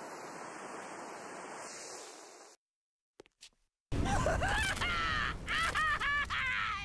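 A steady hiss of a sparking tool cutting at a metal door, which cuts off abruptly about two and a half seconds in. After a short silence, the loud rumble of a burning house sets in with a man's voice wailing in rising and falling cries.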